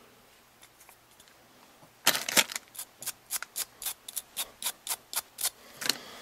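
Tape being pulled off a roll: one loud rip, then a run of sharp crackles about four a second as more is peeled off in short pulls.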